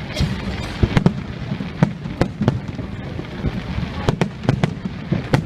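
Fireworks going off: a rapid, irregular series of sharp bangs, about a dozen, over a continuous low rumble of further bursts.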